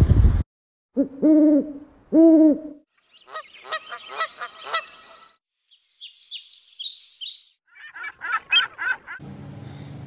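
A string of bird calls with abrupt cuts between them: two low, arching hoots, then quick songbird chips, high chirps and a run of trilled notes.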